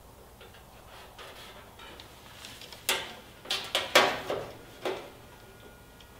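Light rustling, then half a dozen sharp metallic clicks and scrapes, the loudest about four seconds in, as a metal bar is shifted and pressed against a sheet-metal body panel.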